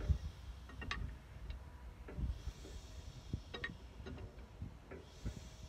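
Scattered light clicks and taps, in no regular rhythm, from hand work on the stopped engine of a 1926 Caterpillar Sixty crawler tractor, with a soft hiss twice.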